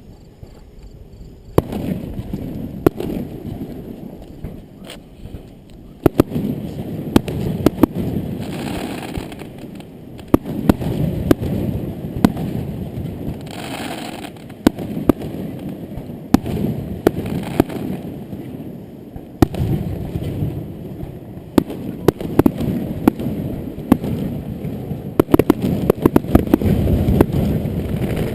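Fireworks display: after about a second and a half of quiet, a dense barrage of shell bursts sets in, many sharp bangs over a continuous rumble, growing loudest near the end.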